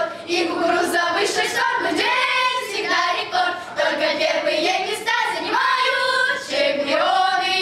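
A group of children singing together, with hand claps.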